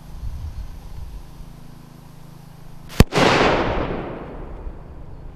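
Xplode MK5 flashbang, an airsoft pyro grenade, going off with a single sharp bang about three seconds in, followed by a rushing tail that dies away over about a second and a half.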